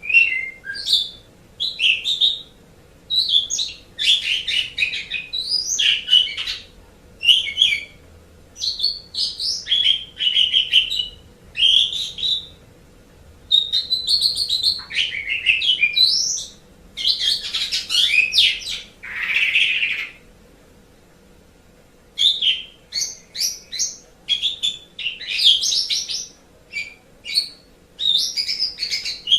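Asian pied starling (jalak suren) singing: a long run of varied whistled and chattering phrases in quick succession, broken by a pause of about two seconds about two-thirds of the way through.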